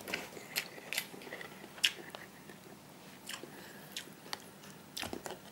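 A person chewing a mouthful of hot instant cup noodles, with scattered short wet clicks from the mouth.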